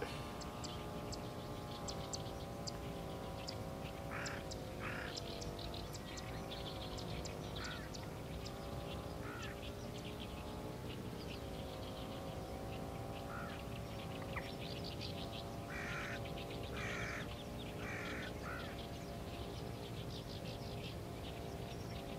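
Birds calling in the open: short harsh calls in clusters about four seconds in and again around sixteen to eighteen seconds, with quick high chirps between. Under them runs a steady droning hum whose pitch slowly wavers up and down.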